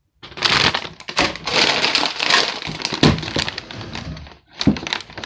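Crinkling, rustling handling noise broken by many sharp clicks, with a louder knock about four and a half seconds in.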